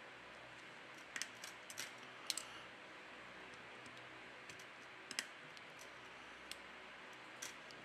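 Scattered light clicks and taps of small tools and parts on a smartphone being reassembled, over a faint steady hiss. The clicks come in a cluster between about one and two and a half seconds in, then a few more singly later.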